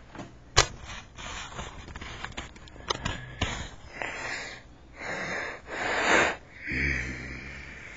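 A person close to the microphone making long, raspy, sniffing breaths, four in a row in the second half. Before that comes a sharp knock, then cloth rustling and taps against the microphone as a robe brushes over it.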